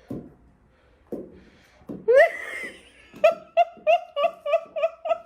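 A high-pitched voice rises in one short cry, then breaks into a quick, even run of about a dozen short high laughs, a few soft knocks before it.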